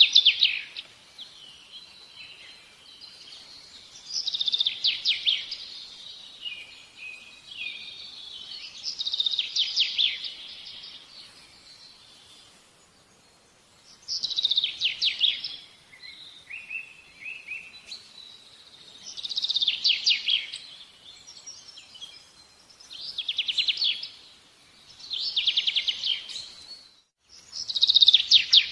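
A songbird singing: short, high, rapidly trilled phrases of about a second each, repeated every four to five seconds.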